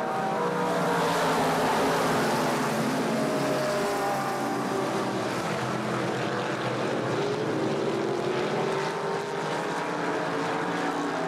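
A pack of late-model stock cars racing around an oval, their V8 engines running hard. Several engine notes rise and fall and overlap as the cars accelerate and pass.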